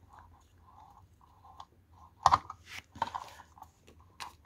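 Light clicks from handling a small tinplate live-steam toy car, with a sharp metallic click about two seconds in followed by a brief hiss, and another click near the end.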